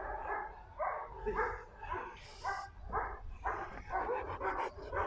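Dogs barking over and over, two to three barks a second, with a short hiss about two seconds in.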